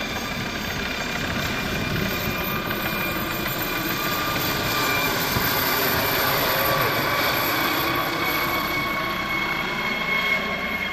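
Air ambulance helicopter climbing away after take-off, its rotor and engine running steadily with a thin high whine. It grows slightly louder about halfway through as it passes overhead, then eases off a little.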